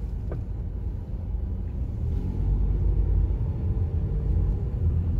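A low, uneven rumble.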